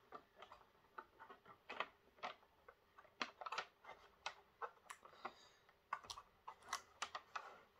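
Faint, irregular clicks and crinkles of cardboard model-train boxes with clear plastic windows being handled and slid against each other.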